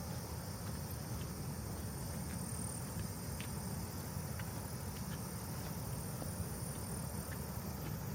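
Rain-swollen river water rushing as a steady low rumble, with a high, steady insect drone over it that swells in the middle. Scattered light ticks, like footsteps on gravel, come every second or so.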